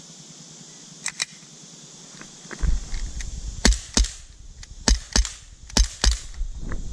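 Sig Sauer P226 CO2 pellet air pistol firing: six sharp cracks in three quick pairs, each pair about a third of a second apart, after two faint clicks about a second in. A low rumble on the microphone starts about two and a half seconds in.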